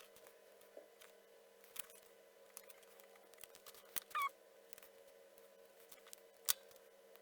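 Scattered small clicks and taps of electronic parts and tools being handled at a workbench, over a faint steady hum. There is a brief squeak just after four seconds and a sharper click about six and a half seconds in.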